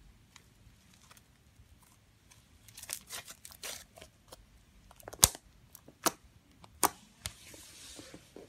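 Clear slime being pressed against and pulled off a badminton racket's strings: sticky crackling about three seconds in, then three sharp pops roughly a second apart, and a short hiss near the end.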